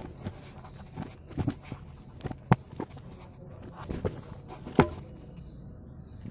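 Scattered knocks and clicks of hands handling metal spanners and brake parts on a hard stone floor, the loudest knock nearly five seconds in.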